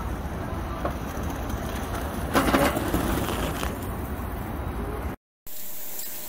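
Rumble of a small plastic skateboard's light-up wheels rolling over paving, louder for about a second at the midpoint. After a brief dropout, the steady hiss of a vacuum cleaner near the end.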